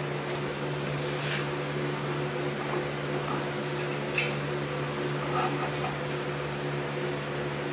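Steady electric hum of a box fan's motor running, with a few light clicks and knocks as the engine block is rolled over on its stand, the clearest about four seconds in.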